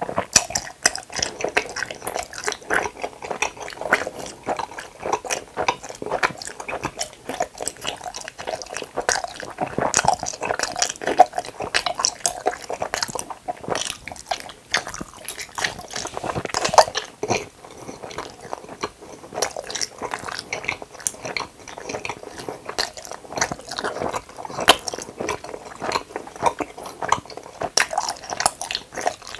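Close-miked chewing of a hamburger-shaped gummy candy: a continuous run of small, irregular mouth clicks and smacks. Another piece is bitten off and chewed about halfway through.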